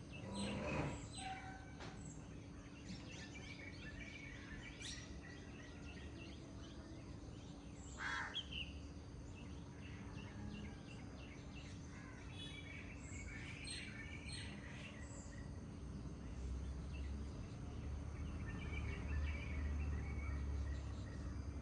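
Several wild songbirds chirping and singing, with two louder calls, one about half a second in and one about eight seconds in, over a low steady rumble that grows louder over the last few seconds.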